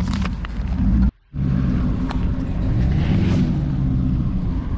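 Porsche Cayenne SUV's engine running steadily at low revs as it crawls up slickrock, with a few sharp clicks over the rumble. The sound drops out briefly about a second in, then the engine resumes.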